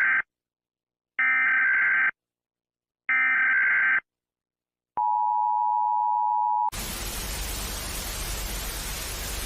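Electronic alarm tones: a buzzy beep about a second long sounds three times, about two seconds apart. It is followed by a single steady beep lasting nearly two seconds, then a hiss of static from about seven seconds in, which cuts off suddenly.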